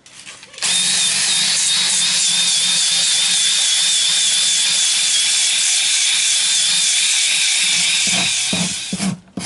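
Handheld power grinder running steadily against a horse's outer hoof wall, cleaning it up to prepare it for gluing on a shoe. It carries a high, slightly wavering whine with a low hum beneath. It starts about half a second in and winds down near the end.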